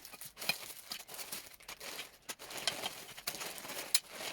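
Plastic packaging crinkling and rustling in irregular bursts as a parcel is unwrapped by hand.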